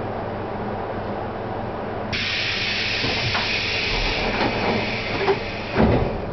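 Stationary 475-series electric train: a sudden hiss of compressed air starts about two seconds in and runs for about four seconds over the train's steady hum, ending with a few knocks and a heavy thump.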